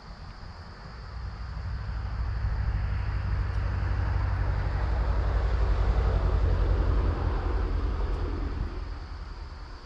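A motor vehicle driving past: a low engine rumble with tyre hiss that swells over several seconds, peaks past the middle and fades away.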